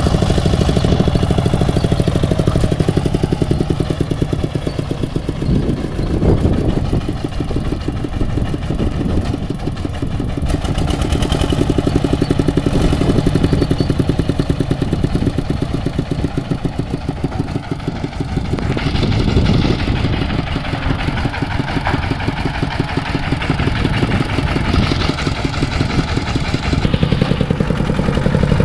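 Rice combine harvester's engine running steadily with a fast, even pulse and mechanical clatter, with stretches of added rattling hiss twice in the second half.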